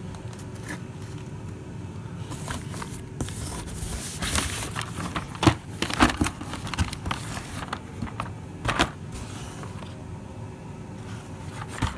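Cardboard firework boxes and a plastic-wrapped pack being shifted around by hand inside a cardboard shipping box: rustling and crinkling, with several sharp knocks as the boxes bump together. A steady low hum runs underneath.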